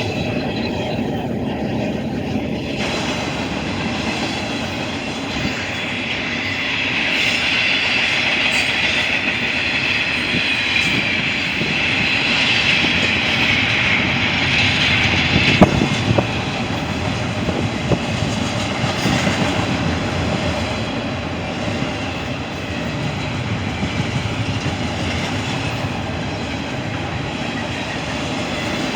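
Freight train rolling past, its wheels clicking over rail joints with a steady rumble. A high squeal from the wheels runs through the middle, and a few sharp clacks come shortly after.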